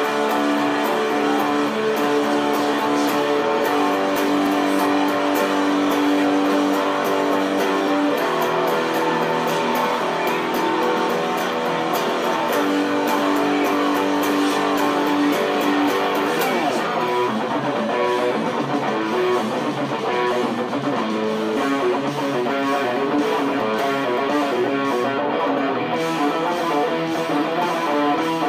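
Electric guitar playing a melodic lead solo: long held notes through the first half, then quick runs of fast-changing notes from a little past the middle.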